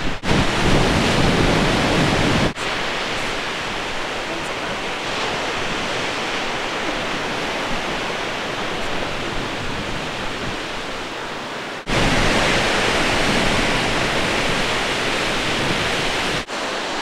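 Steady rushing of wind and breaking surf. The noise drops and jumps abruptly a few times, with a stronger low rumble in some stretches.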